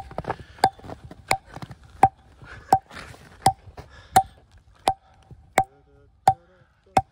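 Firewood being chopped by hand, a steady run of sharp chops about one every 0.7 seconds. Each chop rings briefly with a metallic tone.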